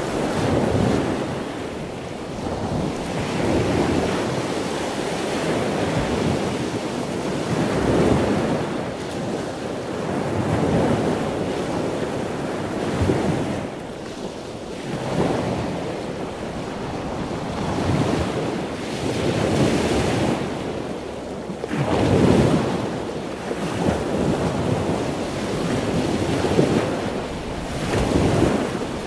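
Ocean surf: waves washing in, swelling and falling every two to three seconds.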